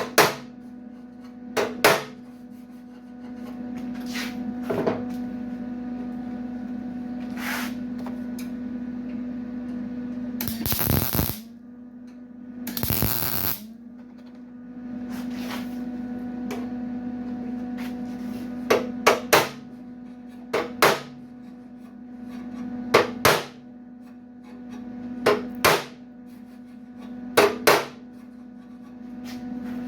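Hammer blows on the sheet steel of a 1951 Chevy tailgate, single strikes and quick pairs every few seconds. Around 11 and 13 seconds in come two short crackling bursts of tack welding, all over a steady hum.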